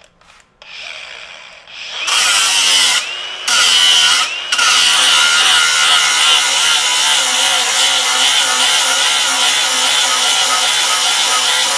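Hercules HCB61P 20-volt brushless angle grinder with a 36-grit ceramic disc grinding a bevel on quarter-inch steel plate: the grinding starts about two seconds in, breaks off briefly twice, then runs steadily with a high motor whine over the scraping of disc on steel.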